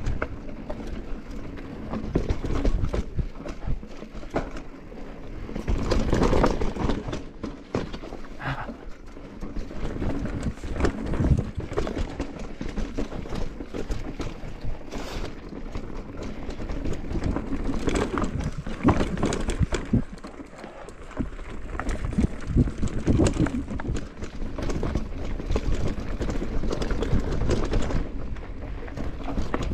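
Mountain bike clattering over a rough trail: irregular knocks and rattles over a steady low rumble.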